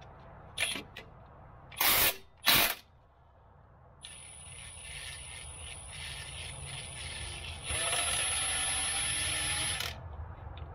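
Milwaukee M18 cordless impact wrench on a 21 mm crank pulley bolt, the bolt being broken loose before the pulley comes off. Two short blips of the trigger, then a run of about six seconds with a high motor whine, louder in the last two seconds before it cuts off suddenly.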